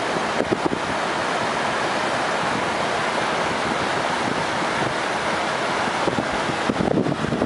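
Steady rushing noise of muddy floodwater flowing down a street in heavy rain, turning rougher and more uneven near the end.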